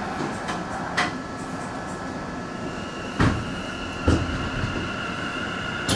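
Sendai Subway 2000-series electric train setting off from the platform: a few sharp clunks and low thuds, and a steady high whine that comes in about three seconds in.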